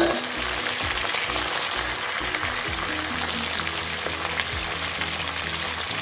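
Raw chicken pieces sizzling in hot mustard oil in a kadahi, a steady frying hiss with small crackles. Background music with low held notes plays under it.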